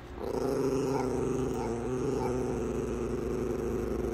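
Small tan dog growling in one long, steady, unbroken growl.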